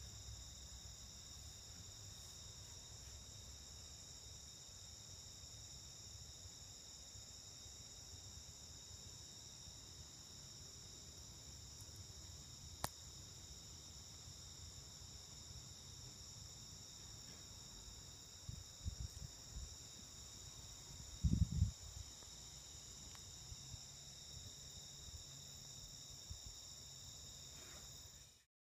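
Steady high-pitched insect chorus, a continuous drone that holds level throughout. Under it runs a low rumble, with a sharp click about halfway through and a few low thumps about two-thirds of the way in, the loudest of them near 21 seconds.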